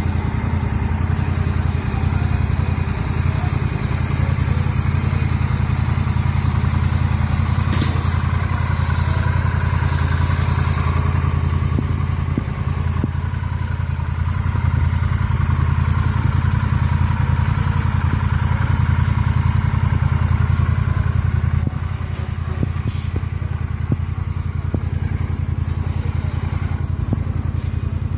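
Honda Rebel 1100 DCT's parallel-twin engine idling steadily, a low, even exhaust note with no revving. It drops a little in level about three-quarters of the way through.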